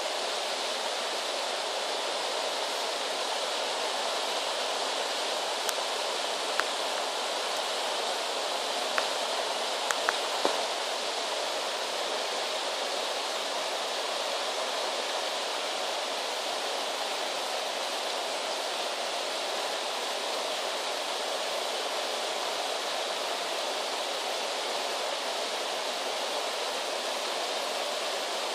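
Steady rushing of water pouring over a low stone weir into a river pool. A few faint sharp clicks come about a third of the way in.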